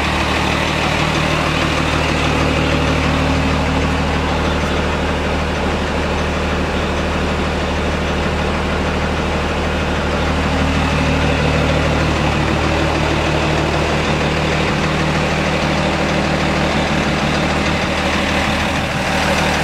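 Diesel engine of a Bronto Skylift aerial-platform fire truck idling steadily, at an unchanging speed.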